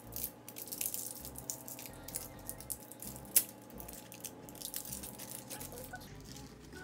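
Plastic packaging rustling and crackling in a string of small clicks as the wrapping on a toy ball's plastic handle is pulled open by hand, with one sharp click about three and a half seconds in.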